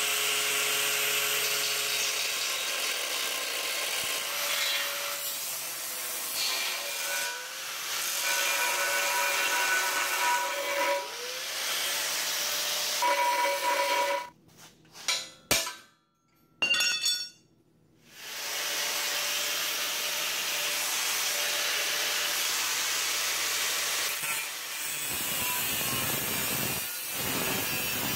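Angle grinder with a cutoff wheel cutting a slot through a steel bumper. The motor's pitch dips and recovers as the wheel bites into the metal. It stops for a few seconds around the middle, with a few short knocks, then starts cutting again.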